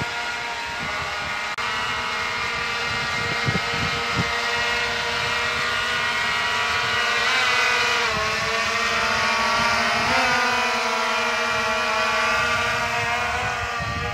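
EHang Ghost 2.0 quadcopter's four electric motors and propellers buzzing in flight with a steady multi-toned whine. The pitch dips and swells twice in the second half as the drone changes thrust.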